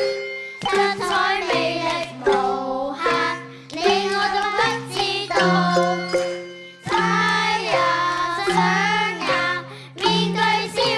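Children singing a song in short phrases with instrumental accompaniment under them.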